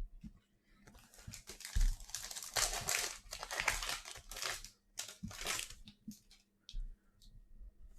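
Plastic wrapper of a trading card pack crinkling as it is torn open and handled, a dense crackling from about a second in that dies away near the end into a few light ticks.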